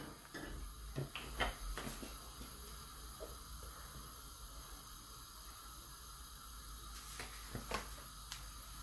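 Faint steady hiss of a gas stove burner under a pot of groundnut oil. A few light knocks in the first two seconds and two or three more near the end.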